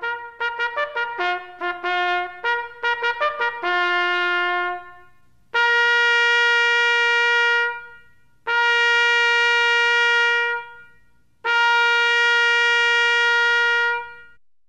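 Trumpet playing a quick run of short, separately tongued notes that ends on a note left to ring out, then three long held notes on the same pitch, each about two seconds with a brief break between them.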